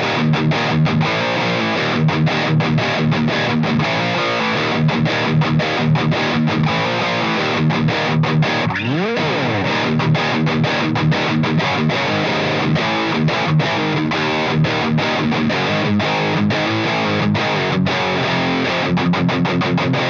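Electric guitar played through an EVH 5150III LBX valve amp head's clean channel, driven into crunchy distortion by a KHDK Ghoul Screamer, a Tube Screamer-style overdrive pedal, with the amp's mids scooped low. Continuous riffing with many picked notes and a sliding pitch sweep about nine seconds in.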